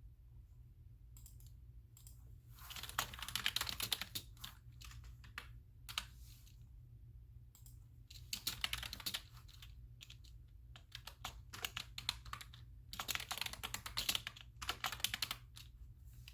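Typing on a computer keyboard in several quick runs of keystrokes with short pauses between them, over a steady low hum.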